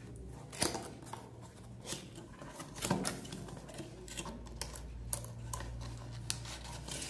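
A cardboard box being opened by hand: its flaps and a cardboard insert scraping and rustling, with scattered sharp clicks and taps. The loudest are about half a second and three seconds in.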